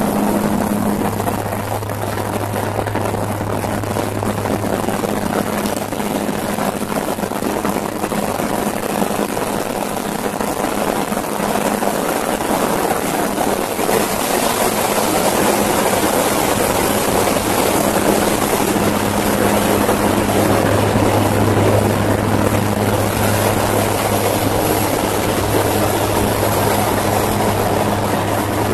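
Military propeller aircraft's engines droning steadily, heard from inside the cabin: a constant low hum over a broad rushing noise, growing a little louder about halfway through.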